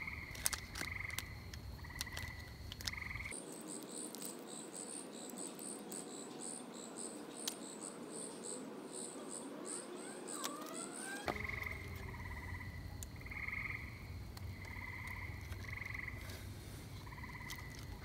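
Frogs calling in the background, short trilled notes repeated over and over. For several seconds in the middle, high, evenly pulsed insect chirping takes their place. Small clicks of hands handling a wiring connector are heard now and then.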